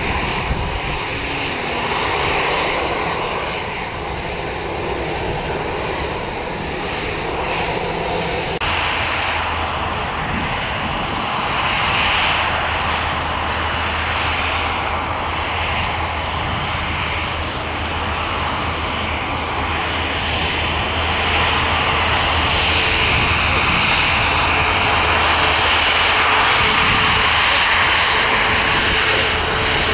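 Airliner engines running steadily and loudly. The sound changes abruptly about nine seconds in, after which a steady low hum and a whine run under the engine noise.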